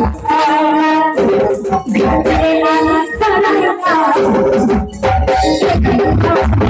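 Live stage folk music heard loud through a PA: an organ-like keyboard melody in held notes, a woman singing into a microphone, and hand drums with a rattle, the drumming growing heavy in the second half.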